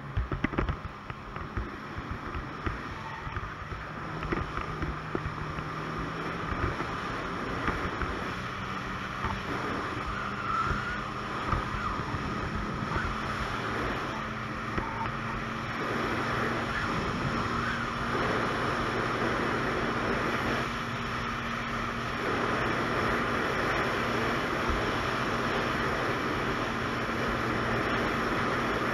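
Ski-Doo Expedition 900 ACE snowmobile's three-cylinder four-stroke engine running under way, its note climbing in steps and getting louder during the first half as the sled picks up speed, then holding steady. Wind rushes over the microphone.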